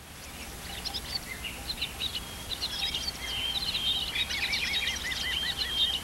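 Recorded birdsong: several birds chirping and trilling, joined about four seconds in by one bird repeating a looping call about four times a second, over a low steady hum.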